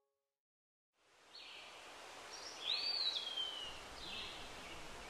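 Outdoor ambience with birds chirping, starting after about a second of silence. About halfway in, one call rises quickly and then slides slowly down in pitch.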